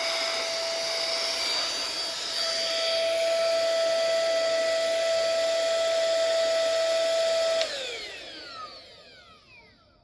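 Anko B-865 cordless handheld vacuum cleaner running with a steady high whine, then switched off near the end, its motor winding down with a falling pitch.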